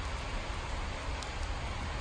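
Steady rain falling, an even hiss with a low rumble under it and a few separate drop ticks about a second in.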